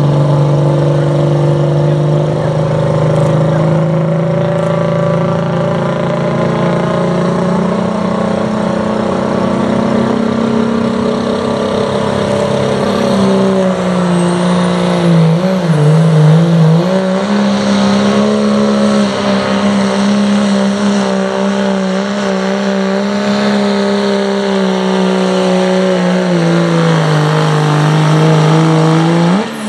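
Dodge Ram pickup's turbocharged Cummins diesel engine pulling hard under full load, held at a steady high pitch. The revs waver and dip briefly about halfway, then fall off near the end.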